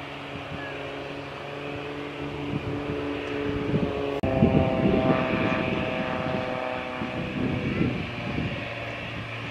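Small single-engine propeller plane's piston engine and propeller at takeoff power: a steady droning hum of several pitches. About four seconds in, the drone jumps suddenly to a higher, louder pitch.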